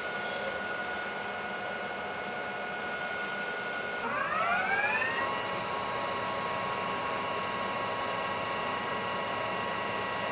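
Metal lathe running with a steady whine while turning down a stainless rifle barrel's muzzle end for threading. About four seconds in, the whine shifts and rises in pitch over about a second, then holds steady at the new pitch.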